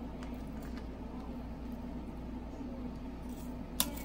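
Salad being tossed in a stainless steel mixing bowl: a few faint light clicks over a steady low hum, then one sharp click near the end as the serving spoon knocks the metal bowl.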